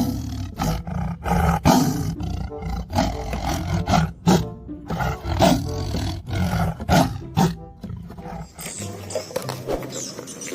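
Tiger roars, a recorded sound effect, repeated over background music and dying down near the end.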